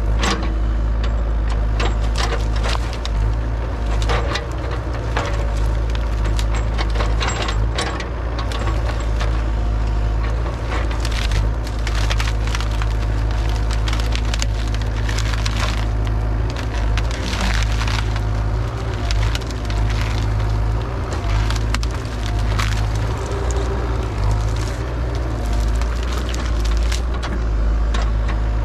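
Mini excavator's engine running steadily while its bucket breaks limbs off a juniper tree: repeated cracking and splintering of wood over the engine hum.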